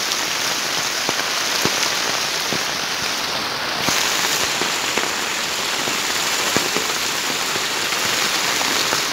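Heavy rain drumming on a plastic sheet roof overhead: a dense, steady hiss full of separate drop ticks, which grows a little louder about four seconds in.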